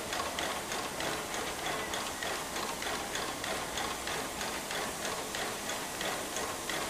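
Steam locomotive (2-10-0 heavy freight engine) at the platform giving a steady run of sharp chuffs, about three a second, over a background hiss of steam.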